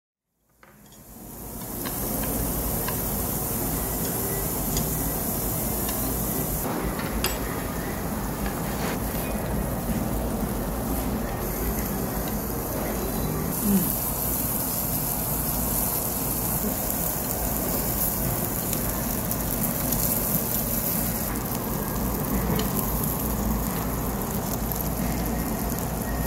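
Food sizzling as it fries in a hot pan, a steady sizzle that fades in over the first two seconds, with a few small clicks and knocks.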